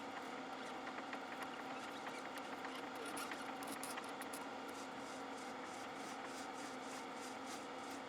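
Small metal lathe running steadily while turning a brass part. A light, regular high scratching comes in from about three seconds in, roughly two to three strokes a second.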